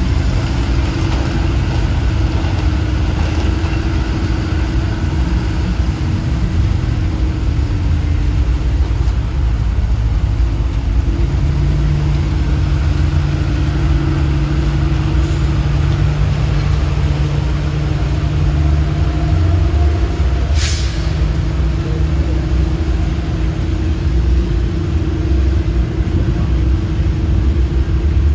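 Heavy diesel truck engine running steadily under load as the truck pulls through mud, its pitch stepping up about eleven seconds in. A short air hiss about twenty seconds in.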